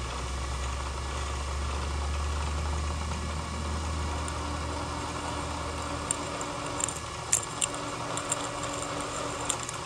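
Machine spindle running at 210 RPM, turning a left-hand drill bit in a broken bolt so that it catches and backs the bolt out: a steady mechanical hum. A low drone drops away about six seconds in, and a few sharp ticks follow.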